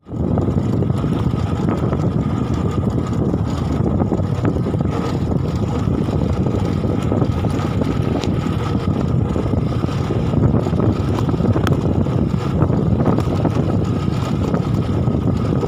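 Motorcycle running steadily along a dirt trail, its engine mixed with heavy wind noise on the microphone.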